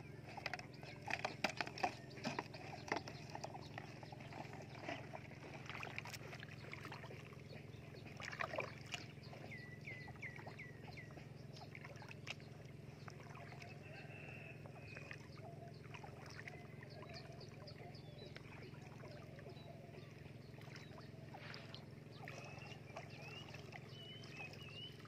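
Water sloshing softly as someone wades slowly through shallow floodwater, pushing a plastic basin along. A few sharp knocks and clatters come in the first three seconds and again about eight seconds in.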